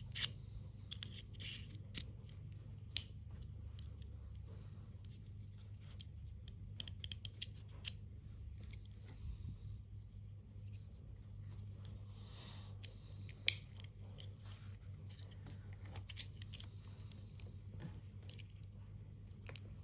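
Scattered small clicks, snips and scraping sounds of hand work with tools and parts during a car light installation, over a steady low hum; two sharp clicks, about 3 seconds in and about 13 seconds in, are the loudest.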